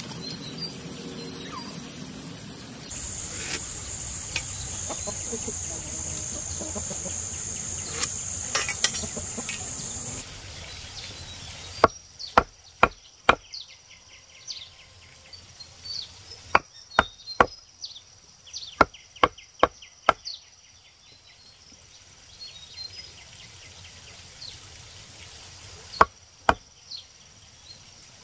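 A steady hiss with a high, even whine for the first ten seconds, then a run of sharp, irregular knocks, some in quick clusters of several, others spaced out with pauses.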